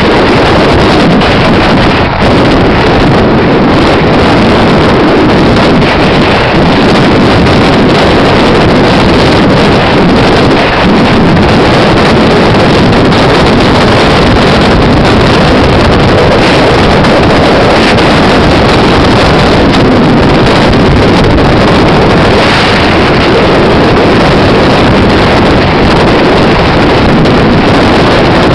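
Heavy, steady wind rushing over the microphone of a moving vehicle, with the drone of its engine and road noise underneath.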